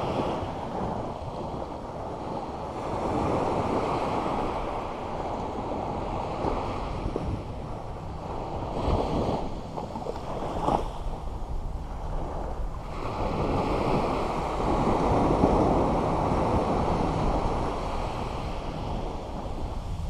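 Small ocean surf breaking and washing up a sandy beach, swelling and ebbing every few seconds.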